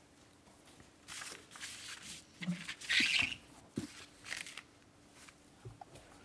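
Bible pages being turned and rustled, in several short papery swishes, with a few small clicks and a faint steady hum underneath.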